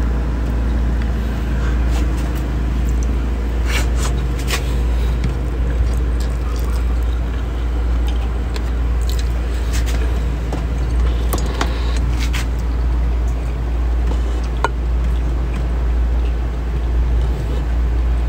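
Steady low rumble, with a few short clicks and taps scattered through it.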